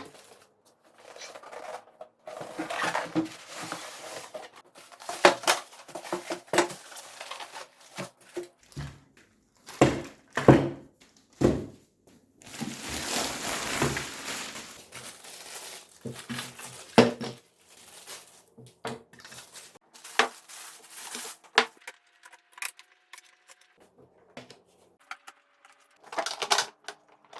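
An espresso machine being unpacked: packaging rustling and crinkling, with irregular knocks and clatter as the machine and its parts are lifted out and set down, and a longer stretch of rustling about halfway through.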